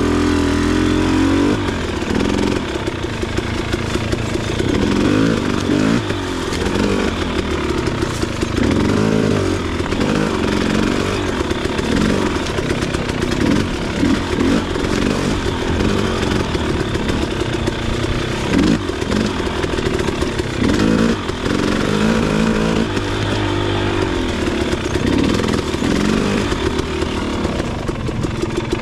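KTM 300 XC two-stroke dirt bike engine being ridden off-road, revving up and down again and again, its pitch rising and falling with the throttle.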